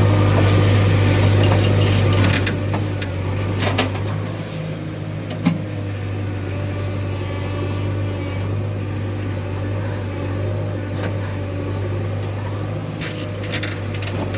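Heavy diesel engine running steadily with a deep drone, easing down slightly about two seconds in, with a few short knocks.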